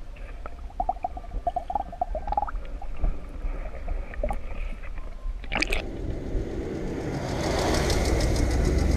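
Muffled underwater water sounds and gurgling from a camera held below the surface beside a caught peacock bass. About five and a half seconds in it cuts sharply to a vehicle engine running, its rumble growing louder toward the end.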